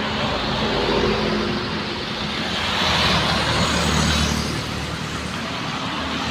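Steady highway traffic noise with a large bus passing close by. Its engine and tyre noise swell about three seconds in and then fade.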